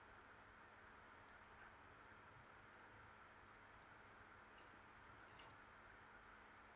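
Near silence: faint room tone with a few soft, light clicks, a quick cluster of them past the middle, from plastic-gloved hands folding and shaping soft bread dough on a silicone baking mat.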